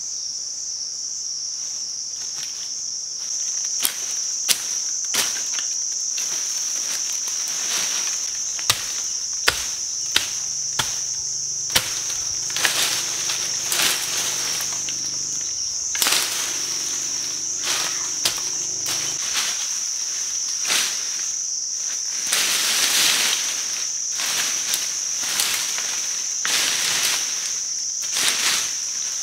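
Insects keep up a steady high-pitched drone while a machete chops into brush and vines: sharp, irregular strikes, often about a second apart, with rustling of cut brush in between.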